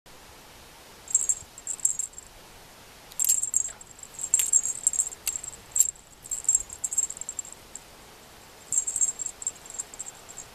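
Small metal jingle on a cat teaser toy tinkling in short bursts as the toy is shaken and dangled, with quiet gaps between the bursts.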